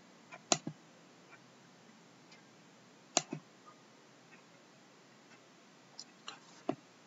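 Sharp computer clicks in three small groups, two or three at a time, as pages are clicked through on a computer; the loudest come about half a second and three seconds in.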